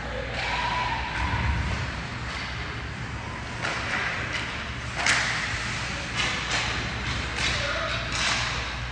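Irregular thuds and sharp slaps over a steady background hum, the loudest about five seconds in.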